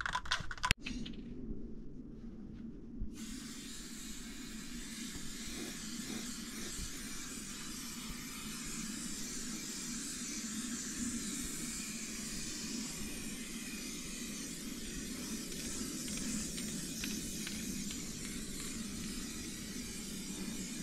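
Aerosol spray-paint can hissing in a long, steady spray, starting suddenly about three seconds in, over a low steady rumble.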